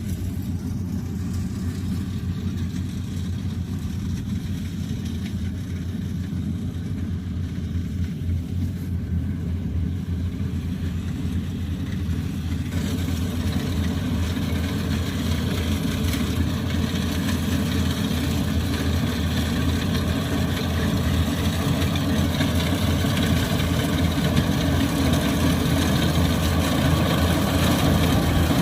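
Kubota combine harvester's diesel engine running steadily, growing gradually louder, with a fuller, harsher sound from about halfway through.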